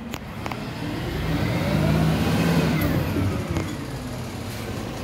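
Dennis Elite 6 refuse lorry's diesel engine revving up and easing back down over a couple of seconds.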